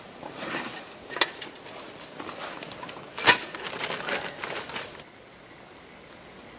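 Camping gear and canvas being handled on the ground: rustling with scattered knocks and one sharp, loud knock a little past three seconds in. After about five seconds only a steady faint hiss remains.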